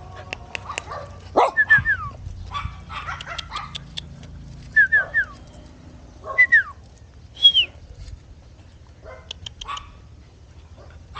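Puppies yipping and whining in short, high cries that fall in pitch, some in quick runs of three, with short clicks between the cries.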